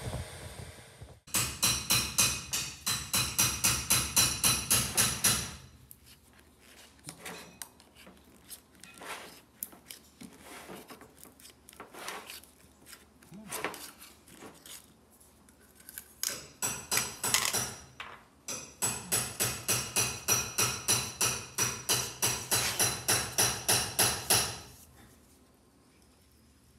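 Quick rhythmic scraping strokes, about five a second, in two long runs with scattered clicks and taps between, then quiet near the end: the lid pried off a can of body filler and the filler stirred with a wooden stick.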